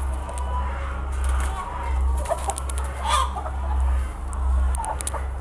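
A shed full of broiler breeder hens and roosters, many birds clucking and calling at once, with one louder call about three seconds in. A low rumble swells and fades underneath.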